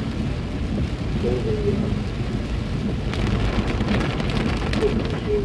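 Rain drumming on a car's roof and windshield over the low rumble of the car rolling on a wet road, heard from inside the cabin. The patter of drops gets thicker and crackles more between about three and five seconds in.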